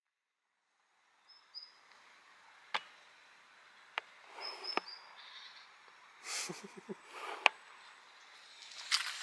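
Quiet outdoor ambience with a few short, high bird chirps and scattered sharp clicks and taps, after about a second of silence.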